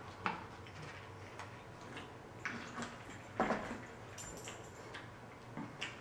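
A man chewing a Big Mac fast and with his mouth full: wet chewing and several short mouth smacks, the loudest about three and a half seconds in.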